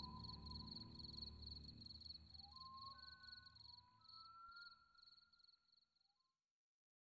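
Faint cricket chirping over a low, soft ambient music drone, all fading out to silence about six seconds in.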